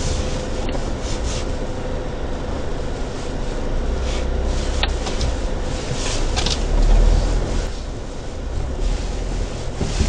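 A car driving slowly over a snow-covered forest track, heard from inside the cabin: the engine and the tyres rumbling and crunching through the snow, with a stronger low rumble about seven seconds in.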